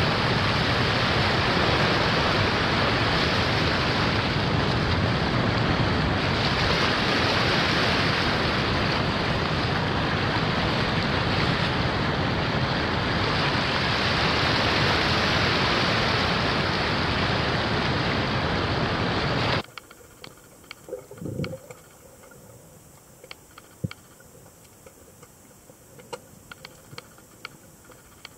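Steady rush of wind and water noise from a boat under way, cutting off abruptly about two-thirds of the way through. After the cut it is much quieter, with scattered faint clicks and knocks.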